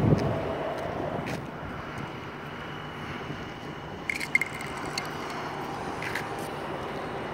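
Outdoor background noise: a low rumble that fades over the first second and a half, then a steady faint hum with a few light clicks, about four seconds in the clearest.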